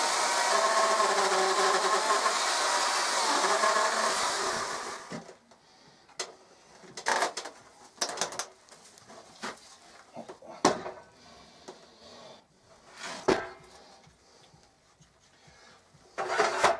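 Electric chainsaw running as it cuts into a wood block, then winding down and stopping about five seconds in. After that come scattered knocks and clatters as the heavy wood block is lifted and set down, with one sharp knock midway and a brief louder scrape at the end.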